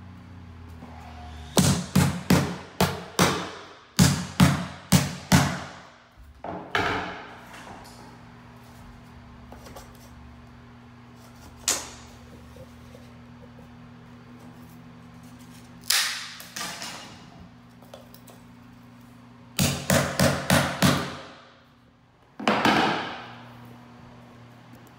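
Hammer driving the nails of wooden carpet tack strips into a hardwood floor: quick runs of four to six sharp blows, with a few single blows between them.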